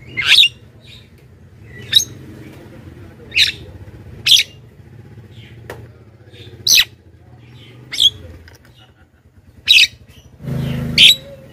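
Javan myna (jalak kebo) giving short, sharp calls, eight in all, about one every one to two seconds, over a low steady hum. A brief rush of noise comes near the end.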